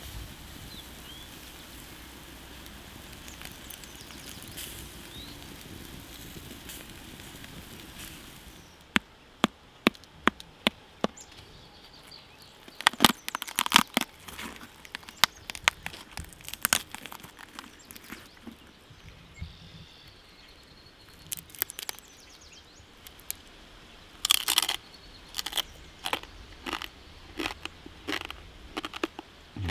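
Crisp roasted pork crackling cracking and crunching as it is broken apart by hand: many sharp, irregular cracks in clusters that begin several seconds in, after a stretch of steady, quiet outdoor background.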